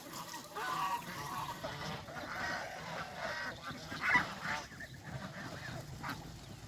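A flock of domestic geese honking and calling over one another in a run of short overlapping calls.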